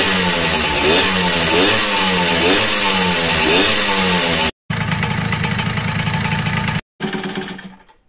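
Tomos ATX moped's two-stroke engine revved in repeated throttle blips, its pitch rising and falling about once a second. After a cut it runs steadily, then fades away near the end.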